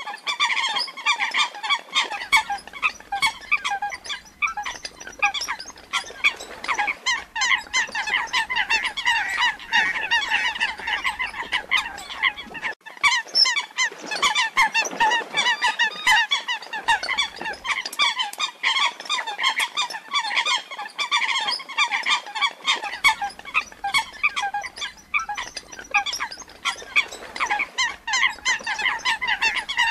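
Coots calling without pause: many short calls in quick succession, often overlapping. It is a lure recording billed as the distress call of a female coot lost from her flock.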